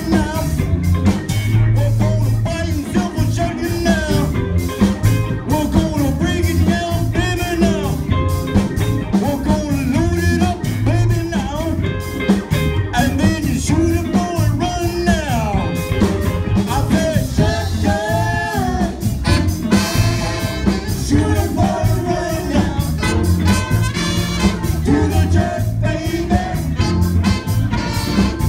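Live band playing, with a horn section of saxophones and trumpet over electric guitar.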